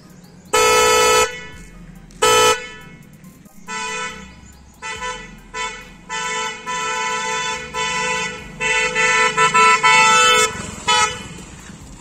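Pair of Moxi 12 V dual-tone snail-type motorcycle horns being sounded in a sound test. There is one long loud blast about half a second in and a short blast a couple of seconds later, then a run of short taps and longer blasts that stops at about ten and a half seconds.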